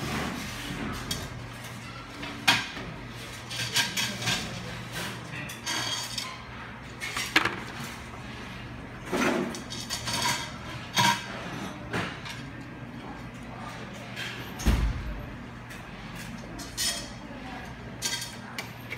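Scattered clicks, taps and clinks of a soldering iron and small tools being handled against a 3D-printer heated-bed circuit board on a table, with one dull thump about three-quarters of the way through. A faint steady low hum lies underneath.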